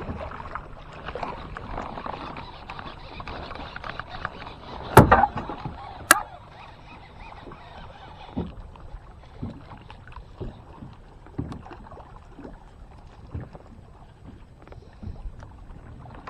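Water sloshing and lapping against a fishing kayak's hull. There is a loud knock on the boat about five seconds in and a sharp click a second later, then light knocks about once a second.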